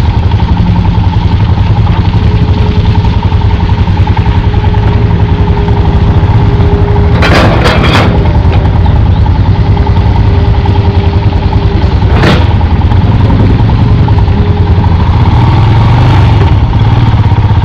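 Adventure motorcycle engine running steadily at low road speed on a rough dirt track. A cluster of short knocks comes about seven seconds in, and another single knock about twelve seconds in.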